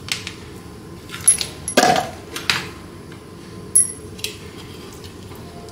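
A few light clicks and clinks of kitchen utensils and a container being handled, with the loudest, a short knock, about two seconds in.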